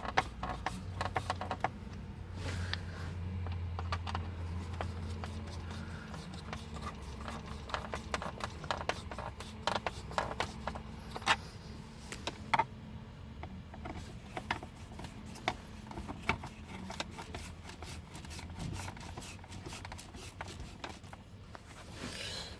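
Scattered sharp clicks and light scraping as screws are driven into a plastic truck center console with a T20 Torx screwdriver, over a low steady hum.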